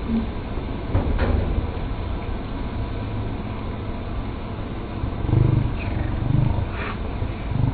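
Chopped peppers and tomatoes frying in a pan on a gas stove: a steady sizzling hiss over a low rumble, with a couple of short knocks and a few short low sounds in the second half.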